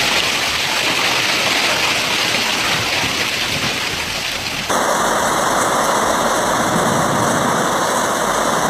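Heavy hail and rain pelting down, a loud, dense, steady hiss. About halfway through it changes abruptly to a different downpour.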